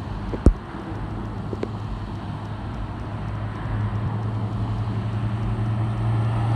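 Road traffic approaching, led by a red Ford Mustang convertible whose engine's low, steady hum grows louder as it draws near. A single sharp knock sounds about half a second in.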